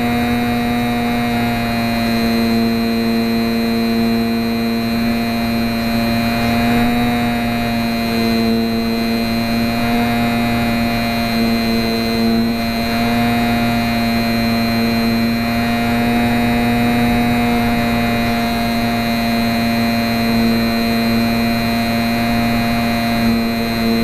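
Electric motor and propeller of a HobbyZone Champ micro RC plane buzzing steadily in flight, picked up close by a keychain camera mounted on the plane. An extra tone in the buzz cuts in and out every few seconds.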